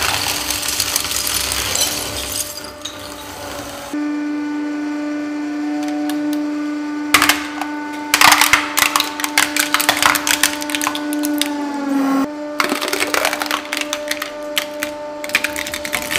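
A hydraulic press running with a steady hum while it crushes things. For the first few seconds a stack of plates crunches and grinds as it shatters. Then a plastic toy road roller gives many sharp cracks and snaps as it breaks, and after a cut another object crackles under the press.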